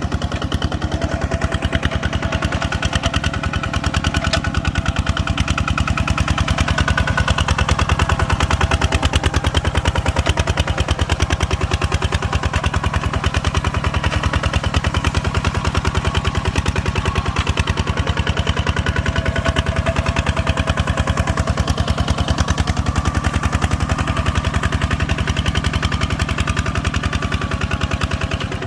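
Farm machine engine running steadily at an even speed, with rapid, regular firing pulses.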